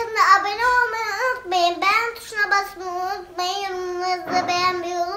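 A young girl's voice talking, high-pitched, with only short pauses.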